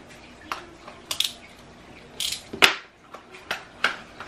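Small plastic-and-card retail packaging being handled and pried open: a run of sharp clicks and crinkles, the loudest a snap about two and a half seconds in.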